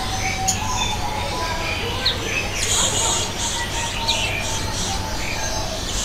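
Assorted short high chirps and calls from several birds, thickest about halfway through, over a steady low hum.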